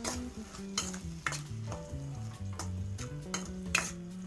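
Steel spoon stirring vegetables frying in a pan, with several sharp clinks and scrapes of metal against the pan and a light sizzle, over background music.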